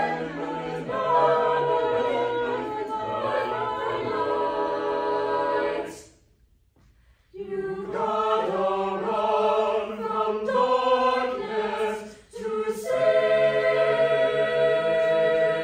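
Mixed choir singing a cappella. The voices cut off together about six seconds in, and after a pause of over a second they come back in. Near the end they settle into a long held chord.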